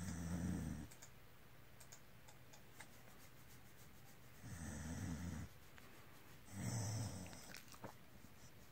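A dog's low, purr-like rumble while it is stroked, a contented sound. It comes three times, each rumble lasting about a second: at the start, about four and a half seconds in, and about six and a half seconds in.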